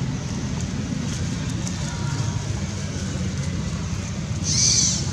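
Steady low outdoor rumble with a brief high hiss about four and a half seconds in.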